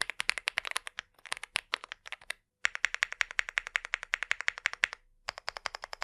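Typing on a Leobog Hi75 aluminum 75% keyboard fitted with Leobog Greywood V4 linear switches: rapid keystrokes in quick runs, with short pauses about two and a half seconds in and again about five seconds in.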